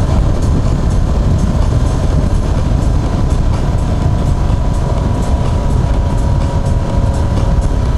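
Yamaha FZ6R motorcycle's inline-four engine running steadily while riding, under a heavy rumble of wind on the microphone.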